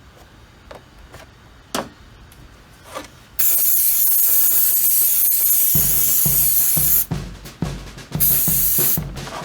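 Aerosol brake cleaner sprayed into a carburetor: a few light clicks of parts being handled, then a long hissing burst starting about three seconds in and a shorter one near the end. A drum-kit music beat comes in about halfway through.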